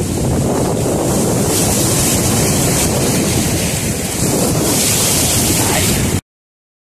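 Sea waves surging and breaking against rock boulders, with wind blowing on the microphone. The sound cuts off abruptly about six seconds in, leaving silence.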